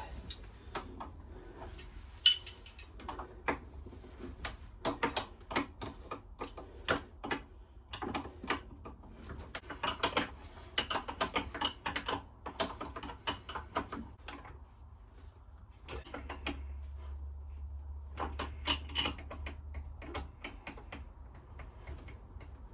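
Small metal parts clinking and rattling in irregular bursts as someone rummages through hardware looking for washers. A faint low hum joins in for a few seconds past the middle.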